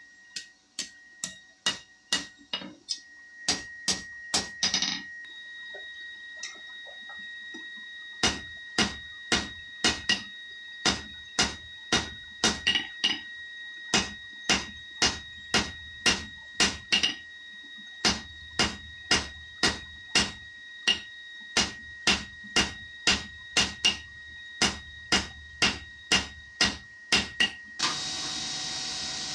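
Blacksmith's hammer striking hot steel on an anvil, forging a fire poker, with the anvil ringing on between blows. A quick run of blows is followed by a short pause, then steady blows about two a second. The hammering stops near the end and a steady rushing noise takes over.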